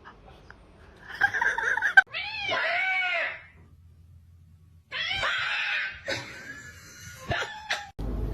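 A cat meowing in three drawn-out calls: one about a second in, a longer arching one at about two seconds, and another at about five seconds. A sharp knock comes at about two seconds, and a click later.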